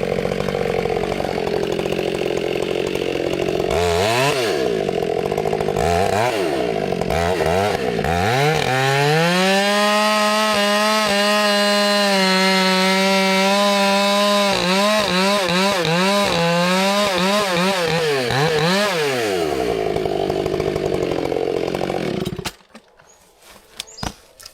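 Two-stroke chainsaw idling, revved twice, then held at full throttle for about ten seconds with its pitch wavering as it cuts cedar, before dropping back to idle. It cuts off abruptly about 22 seconds in.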